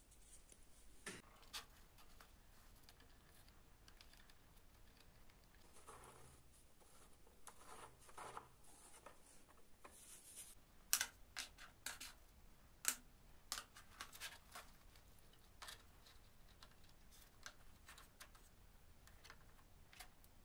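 Small wooden model parts being handled and set down on a wooden worktable: faint rubbing and scraping, with scattered light clicks and wooden taps, and a cluster of sharper knocks around the middle.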